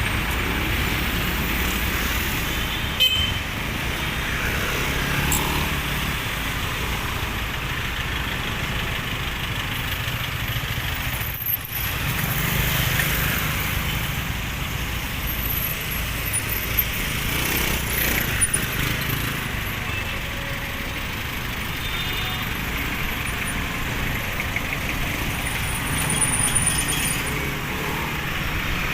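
Street traffic: the steady running and passing of cars and motorcycles, with a sharp click about three seconds in.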